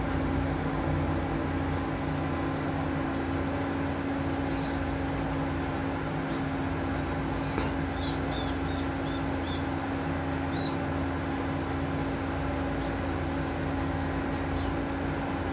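A fledgling great tit begging at a fat-ball feeder: a quick run of about seven high, short calls halfway through, and a few single chirps elsewhere. Under them runs a steady low hum that is louder than the calls.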